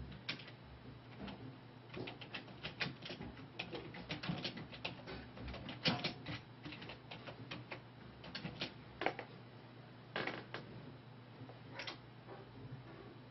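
Computer keyboard typing: irregular keystrokes in quick runs with short pauses, over a steady low hum.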